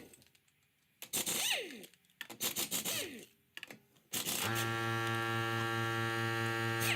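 Air impact wrench running in short bursts to spin off a car's lug nuts, each whine falling in pitch as the tool slows. From about four seconds in, a steady hum takes over.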